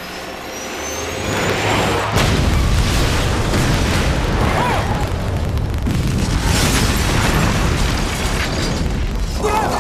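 Film sound effects of an air strike: a thin rising whine, then a large explosion about two seconds in, its heavy rumble carrying on to the end.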